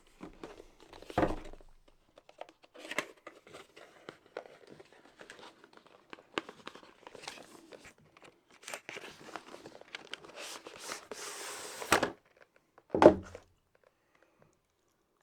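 Cardboard and plastic packaging of a keyboard box being handled and opened, with crinkling and rustling. There is a knock about a second in, a longer tearing or sliding rustle that stops suddenly near the end, and a second knock just after it.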